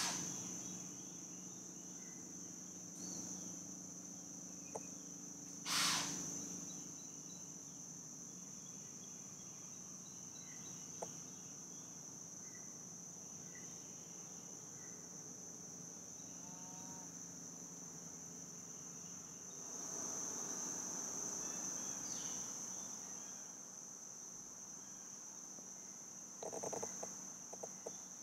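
Steady high-pitched insect chorus. Two short, loud bursts of noise break in, one right at the start and one about six seconds in. A swell of rustling comes around twenty seconds in, and a few light clicks near the end.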